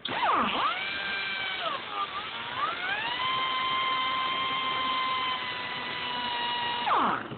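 Handheld power cut-off tool cutting through steel handcuffs: it starts up suddenly, dips and climbs in pitch over the first couple of seconds, holds a steady high whine, then is switched off and winds down near the end.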